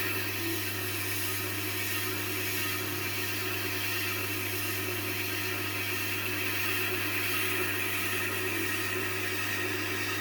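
Tormek T-8 sharpening machine running with a steady motor hum and an even hiss.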